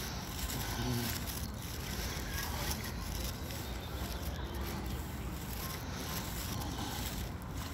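Wind on a phone's microphone during a walk outdoors: a steady low rumble with hiss.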